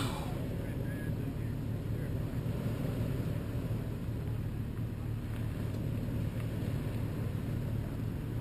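Toyota 4Runner's engine running steadily at low revs as it crawls slowly over a rocky dirt trail.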